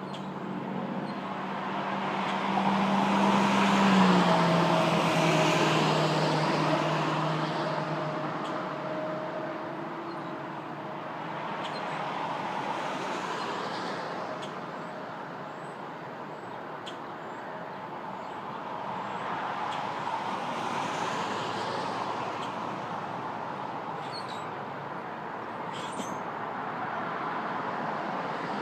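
Road traffic going by: several vehicles pass one after another, each swelling and fading. The loudest passes about four seconds in, its engine tone dropping in pitch as it goes by.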